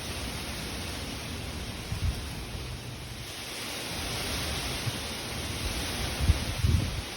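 Strong wind blowing through trees, a steady rushing of leaves and branches that swells about a third of the way in. A few low rumbling gusts come through, the strongest near the end.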